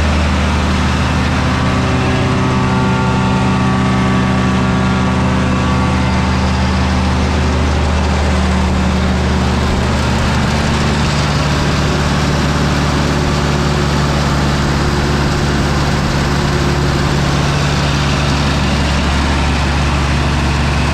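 Diesel wood chipper engine running steadily with a deep hum, its tone shifting slightly lower about ten seconds in.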